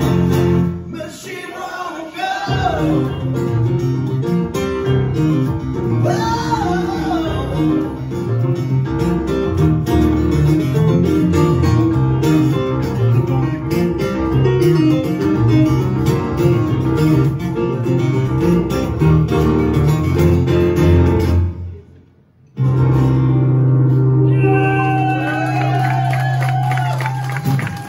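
Live acoustic guitar and stage piano playing a song together, with a man singing at times. Near the end the music drops out for a moment, then returns with held low chords and singing before cutting off abruptly.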